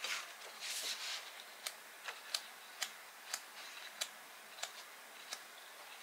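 A soft rustle, then a run of about eight light, sharp clicks, one every half second or so, that stops near the end.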